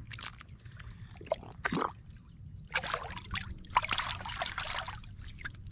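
Water splashing and trickling as a carp is released back into the river, in several irregular splashes, the biggest about three seconds in.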